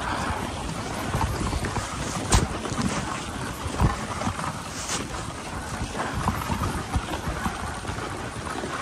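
Dog sled gliding over packed snow: a steady hiss and rumble of the runners, with two sharp knocks as the sled jolts, about two and a half and four seconds in.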